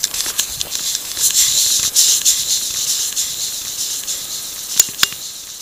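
Loose gravel and stones crunching and rattling close to the microphone, with scattered sharp clicks; loudest in the first half, thinning out to a few separate clicks near the end.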